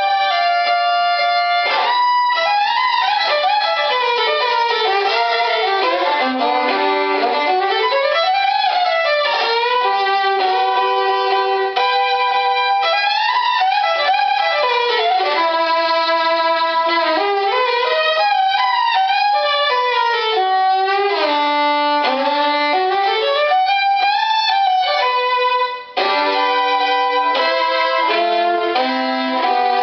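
Full-size violin played solo: quick runs and arpeggios sweeping up and down the range, with held double stops near the start and again after a brief pause near the end.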